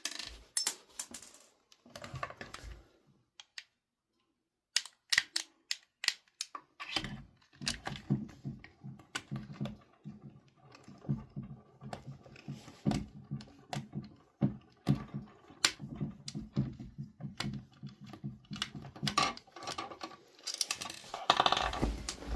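Small security screws being backed out of an Xbox controller's plastic shell with a hand screwdriver: a run of small plastic clicks and taps, with a long stretch of quick, even ticking in the middle as the driver turns, and louder handling of the plastic parts near the end.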